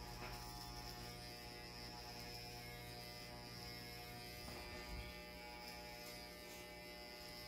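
Corded electric hair clippers with a plastic guard running with a steady electric hum while trimming hair.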